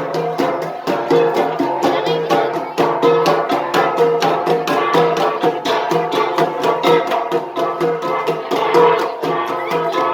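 Gangsa, flat bronze gongs, beaten together in a quick, even interlocking rhythm, their tones ringing on between strikes.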